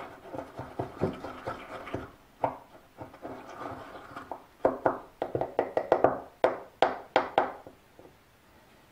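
Wooden stick stirring animal glue (bone-glue pearls and nerve-glue powder) with water in a glass jar: rapid clicks and scrapes of wood and grains against the glass, busiest in the second half and stopping near the end.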